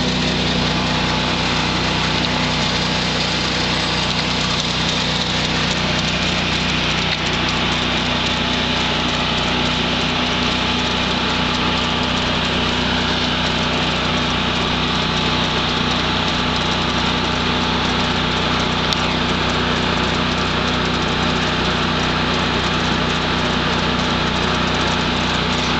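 The 10,000-watt generator welder's engine running steadily at constant speed, powering the cable system, an even drone with no change in pitch.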